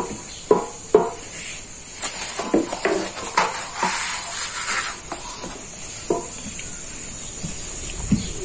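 A thin wooden rolling pin knocking and scraping against a gas-heated steel sac griddle while a large sheet of yufka flatbread is lifted and turned on it. The sheet of bread rustles as it moves. The handling is irregular, with a few sharp knocks in the first second and a run of scraping from about two to five seconds in.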